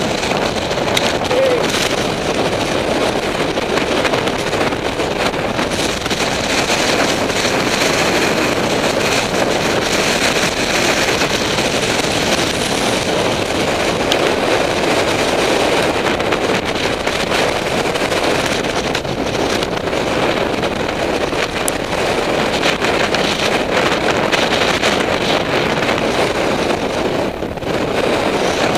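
Mountain bike riding down a loose rocky trail: steady wind noise on the microphone over the crunch of tyres on gravel and the rattle and knock of the bike over stones.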